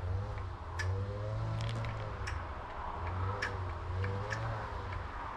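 Scattered light plastic clicks and ticks from a syringe and a bottle of salmon oil being handled as the oil is drawn up into the syringe, over a steady low hum.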